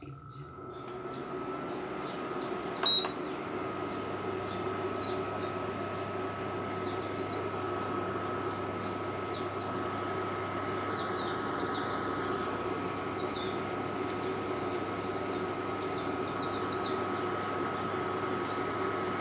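Microwave oven running with a steady hum and thin whine while it heats a bowl of water with cloves to the boil, with one short beep about three seconds in. Small birds chirp repeatedly in the background.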